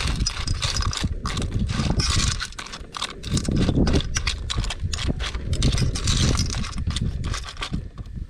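A metal spoon stirring swimming crabs and chopped vegetables in a cooking pot, with many quick clicks and scrapes of the spoon against the shells and the pot. Wind rumbles on the microphone underneath.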